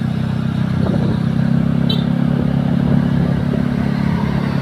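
Bus engine running steadily, a low even drone, with a brief faint high chirp about two seconds in.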